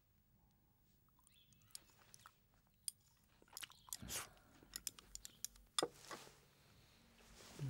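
Eating at a table: chopsticks clicking against porcelain rice bowls and quiet chewing, heard as scattered small clicks and knocks that grow busier about halfway through.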